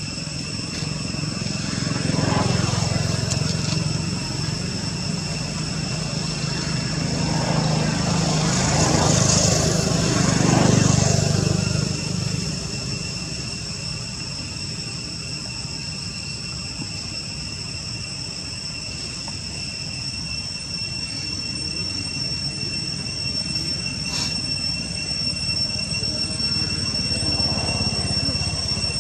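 Passing motor vehicles: a low engine rumble that swells and fades three times, loudest about ten seconds in, over a steady high-pitched drone.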